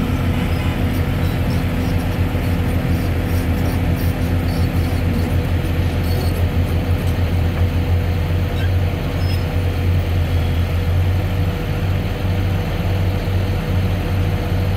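Diesel engine of a LiuGong crawler excavator running steadily, a constant low hum.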